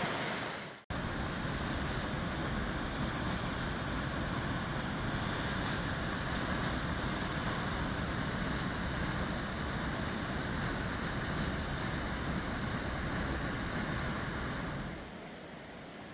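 Steady rush of water, cutting in abruptly about a second in and dropping to a quieter hiss near the end.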